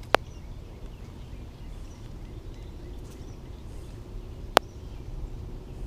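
Steady low outdoor rumble with two sharp clicks, one just after the start and another about four and a half seconds later.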